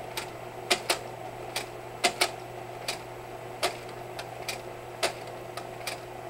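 Kodak Carousel 850H slide projector with its cooling fan humming steadily, while its slide-change buttons are pressed again and again and the mechanism cycles with sharp clicks, many in quick pairs, about a dozen in all.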